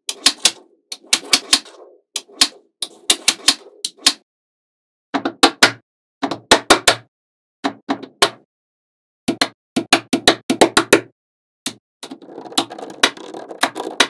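Small magnetic balls snapping together, in quick clusters of sharp clicks separated by short pauses. In the last two seconds there is a denser rattling clatter of many balls.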